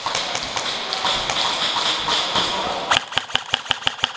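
Airsoft electric rifle firing a rapid burst, about seven shots a second, for a little over a second near the end. Before it there is a steady hiss with scattered clicks.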